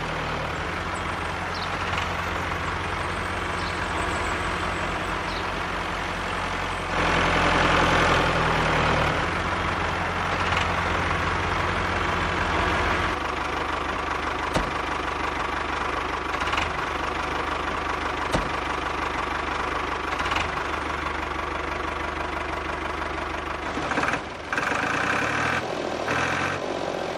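Tractor engine running steadily, its low hum shifting in pitch a few times, with a louder stretch about seven seconds in.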